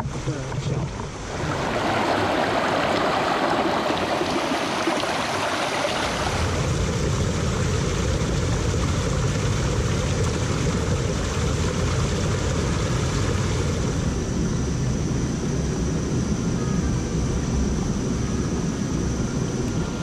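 Mountain stream rushing over boulders: a steady loud hiss of running water. From about six seconds in a deep low rumble runs beneath it.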